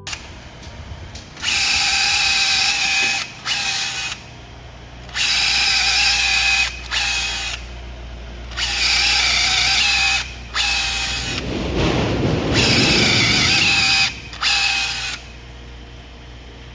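Makita DHR243 18V cordless rotary hammer drilling into a wooden board with a twist bit in its keyless chuck. Its motor whines in four main runs of one and a half to nearly three seconds, most followed by a short blip, with pauses between. The last long run, about twelve seconds in, adds a deeper rumble.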